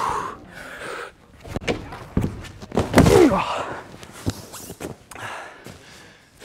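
A boulderer's attempt on a climbing wall that fails: a sharp exhale, a few dull thuds of hands and feet striking the holds, then the loudest moment about three seconds in, an impact with a strained groan that falls in pitch.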